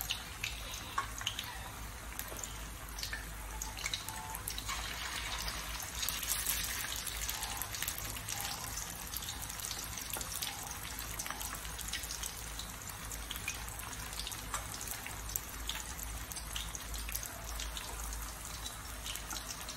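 Fish cakes deep-frying in hot oil in a stainless steel pan: a steady sizzle with many small crackles and pops.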